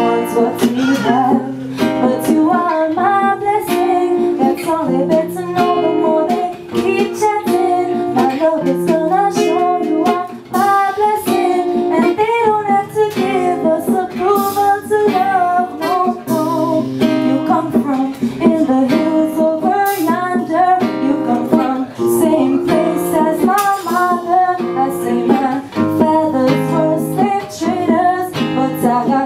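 Live reggae song played on a strummed acoustic guitar and a drum kit, with a woman singing into a handheld microphone over it.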